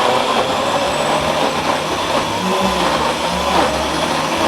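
Electric blender running at a steady speed, grinding chunks of radish and pear with honey into a pulp.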